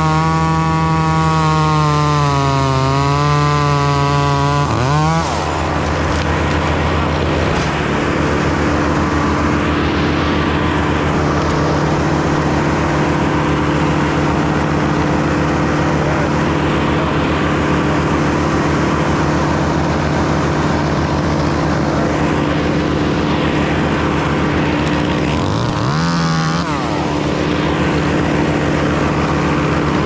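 Chainsaw running at full throttle for about the first five seconds, then dropping off. A steady engine drone continues underneath, and the saw revs up and back down once more near the end.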